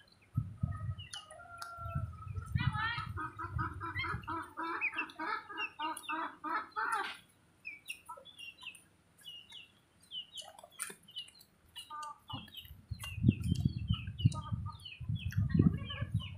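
A chicken clucking in a rapid run of about five clucks a second for some four seconds, followed by short, higher, scattered chirps. Low, muffled rumbles come and go around it and are loudest near the end.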